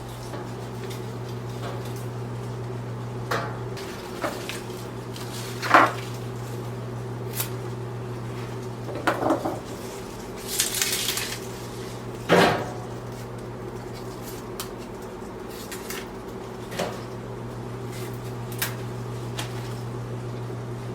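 Scattered clinks and knocks of objects being handled and set down on a hard surface, with a brief rustle midway, over a steady low hum.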